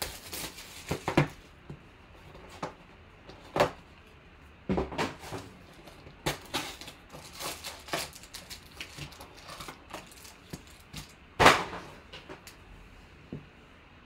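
Hands handling a cardboard trading-card box as it is opened and two foil-wrapped packs are pulled out: a scattered run of short knocks, scrapes and rustles, with the loudest knock about two-thirds of the way through.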